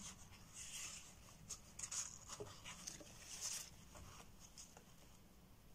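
A few short, soft swishes of paper towel wiping the rim of a paper mixing cup, followed by faint handling sounds of gloved hands on a silicone mould.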